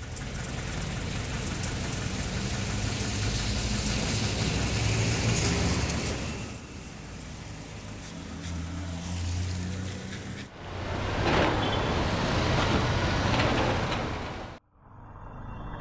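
Street traffic: a passing vehicle swells and fades over the first few seconds, then after a sudden cut there is another stretch of traffic noise that stops abruptly near the end.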